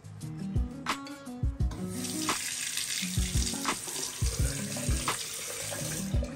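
Water running from a bathroom tap into the sink, starting about two seconds in and cutting off near the end. Background music with a steady drum beat and bass line plays throughout.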